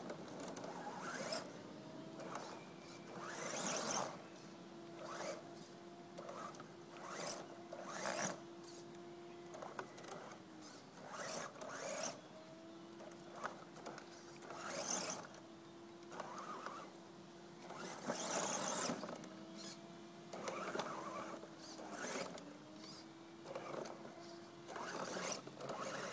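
Electric drive motor and gears of a 1:10-scale Axial RC Hummer crawler whining at a steady pitch that sags briefly several times as the throttle is eased, with repeated short rasping bursts as the tyres scrabble in the mud.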